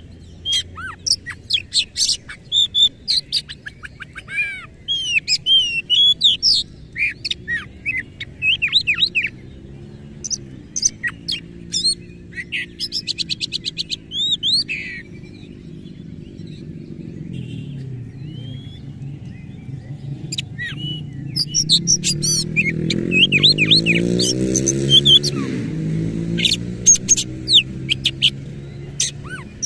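Oriental magpie-robin (kacer) singing a loud, varied song of quick chirps, whistled sweeps, trills and harsh notes. It sings in rapid bursts through the first half, pauses, then sings again near the end. Underneath, a low drone rises and falls in pitch and is loudest in the second half.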